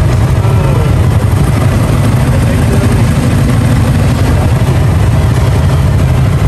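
Motorcycle engine running steadily: a continuous low rumble.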